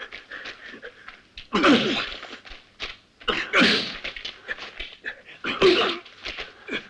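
Two men brawling: three loud bursts of grunting and crying out with effort, about two seconds apart, falling in pitch, with smaller knocks and scuffles between.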